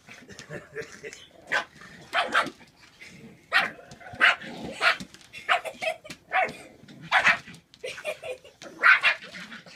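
A puppy yapping in short, high barks, again and again in an irregular series, as it guards its food bowl from a bigger dog.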